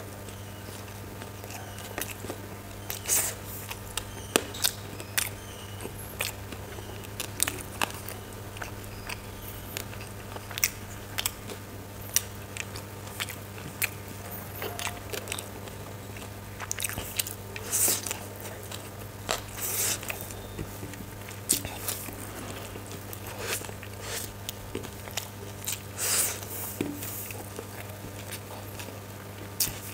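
Close-up chewing and mouth smacks of a person eating spicy chicken chowmein noodles by hand, with irregular wet clicks and bites. A steady low hum runs underneath.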